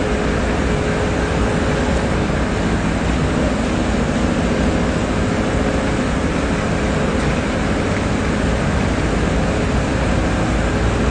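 Steady loud rumble of a heavy diesel concrete mixer truck's engine running at a standstill, with a faint steady drone over it and street traffic mixed in.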